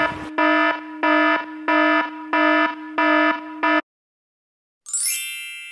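Electronic warning-buzzer sound effect for a dead camera battery: a buzzing alarm tone that pulses about seven times, about one and a half a second, then cuts off suddenly. About a second later comes a single bright ding that rings out and fades.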